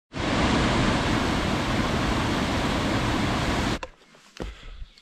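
Small mountain waterfall pouring into a pool: a steady rush of water that cuts off suddenly just under four seconds in, leaving only a few faint light knocks.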